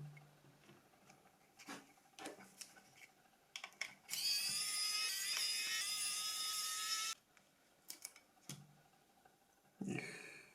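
A small handheld electric tool whirs with a steady high-pitched whine for about three seconds, then cuts off sharply. It is being used to clean a phone's main board. Light clicks and taps of parts being handled come before and after it.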